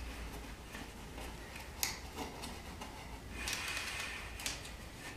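Quiet handling noises as insulated hookup wire is fed along a plywood board: a sharp tick almost two seconds in and a brief hiss a little after three seconds, over a low steady hum.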